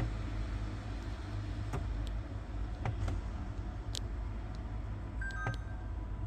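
LG refrigerator's ice ball maker running in demonstration mode: a steady low motor hum with scattered sharp clicks, and a few short electronic beeps near the end.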